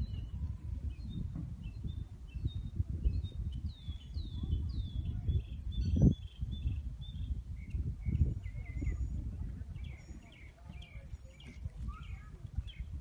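Birds chirping, with short repeated calls and a few quick down-sweeping notes, over a continuous uneven low rumble, and one louder thump about six seconds in.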